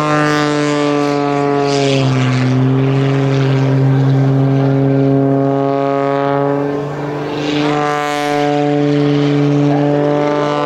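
Oracle Challenger III aerobatic biplane's piston engine and propeller, loud and steady. The pitch drops about two seconds in, and the sound dips briefly and swells again near the end as the plane manoeuvres low overhead.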